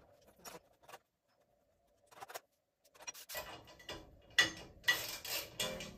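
Small metal clicks and clinks from a tiny steel wood stove's air-intake covers being worked loose by hand. The clicks are sparse at first, then sharper and more frequent from about three seconds in.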